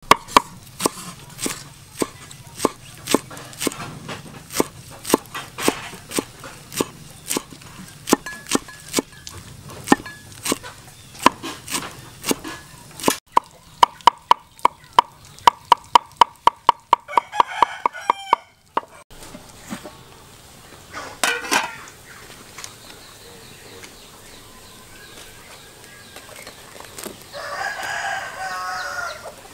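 Steel cleaver chopping green herbs on a round wooden chopping block: separate chops at first, then a fast even run of about five chops a second that stops after about eighteen seconds. Chickens cluck, and a rooster crows briefly near the end.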